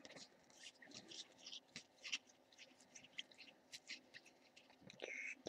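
Faint, scattered clicks and soft slides of glossy Bowman Chrome football cards being thumbed off a stack one at a time, with a slightly louder scrape near the end.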